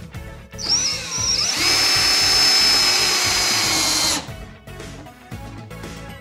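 Cordless drill running into a pine board. The motor winds up with a wavering pitch about half a second in, then holds a steady high whine for about two and a half seconds and stops just after four seconds.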